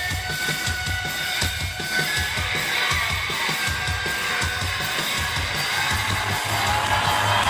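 Rock band playing live, heard from within the audience: a steady drum-kit beat under sustained guitar and keyboard tones.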